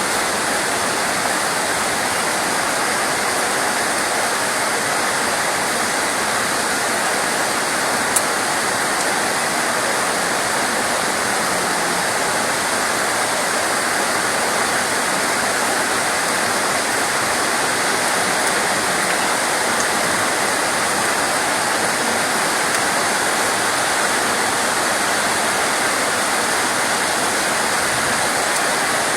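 Steady rain, an even, unbroken rush of falling water, with one faint click about eight seconds in.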